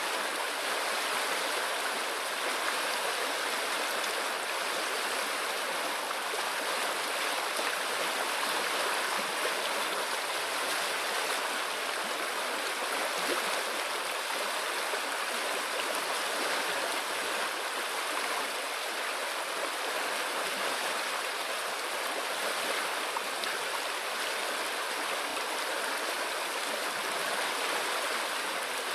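A river flowing: a steady rush of water.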